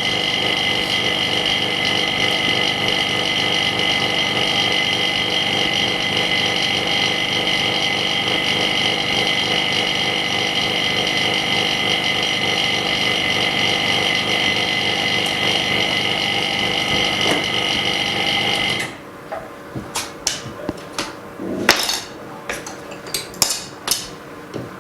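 A machine runs with a steady electric hum, most likely the repair machine's pump or motor, and cuts off suddenly about nineteen seconds in. A scatter of sharp clicks and taps follows.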